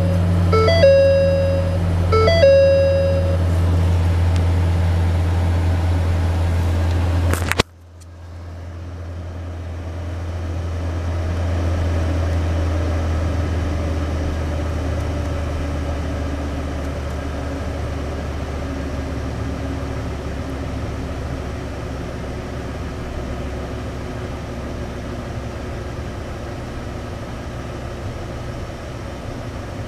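2011 Ford F-450 Super Duty truck's engine idling steadily in park, with a dashboard warning chime sounding in a repeating pattern for the first few seconds. About eight seconds in, the sound drops out abruptly, then the idle fades back up and runs on steadily.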